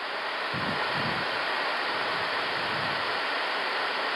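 Steady rushing hiss of airflow and air conditioning on the Airbus A380 flight deck during a high-speed descent, with a low rumble underneath from about half a second in.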